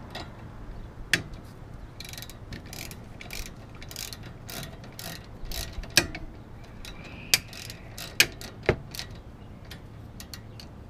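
Irregular metallic clicks and clinks as bolts are threaded by hand into a car's front brake caliper, with a few sharper knocks of metal on metal.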